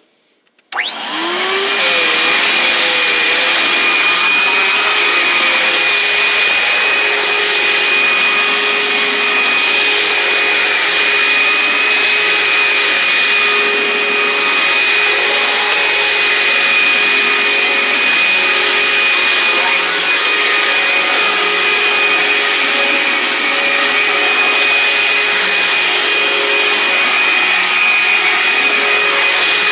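Sanitaire Quiet Clean commercial upright vacuum switched on less than a second in, its motor spinning up with a rising whine, then running steadily with a high, steady whine. Its hiss swells and fades about every two seconds as it is worked back and forth over a rug.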